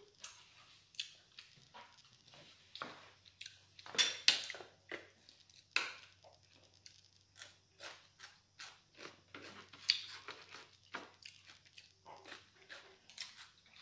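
Irregular clinks and knocks of utensils against dishes at a meal, a few of them sharper and louder about four seconds in and again near ten seconds.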